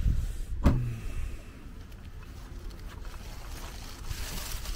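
Wind buffeting the microphone, with a single sharp clunk about a second in as a BMW 330i saloon's boot lid is opened, then plastic carrier bags rustling near the end as they are set into the boot.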